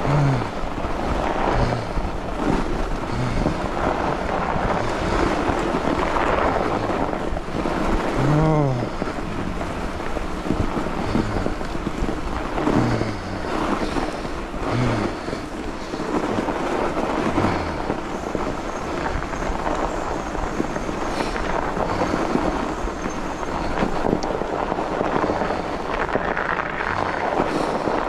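Fat bike riding along a packed-snow trail: a steady rush of the fat tyres rolling over snow and wind on the microphone, with the rider's short, low grunting breaths every second or two.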